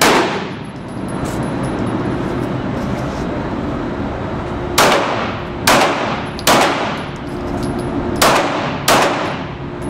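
Handgun shots on an indoor range, each with a ringing echo off the walls: one shot right at the start, then five more between about five and nine seconds in.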